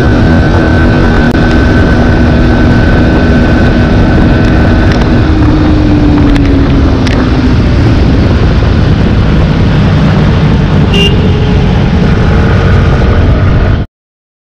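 Bajaj Pulsar NS160's single-cylinder engine running hard at riding speed, buried under loud wind noise on the microphone. About five seconds in, the engine note falls as the bike slows. Near the end the sound cuts off abruptly.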